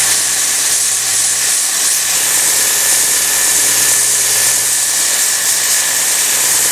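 Edge belt sander running with a steady hiss and a thin steady whine as plywood drawer parts are pressed against the moving belt to round over and smooth the edges.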